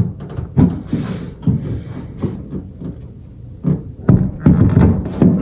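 Irregular knocks, clicks and scraping of hand tools working a stuck bolt whose head is stripping, on a truck tailgate, with short hissy bursts about a second in and a busier run of knocking near the end.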